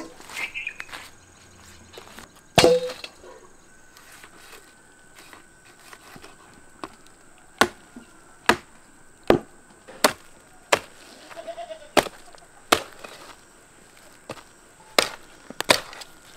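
A heavy curved chopping knife hacks through a roasted goat carcass into a wooden log chopping block, about ten sharp chops in all. One loud chop comes about two and a half seconds in, then a steady run of chops a little under a second apart from about seven and a half seconds on.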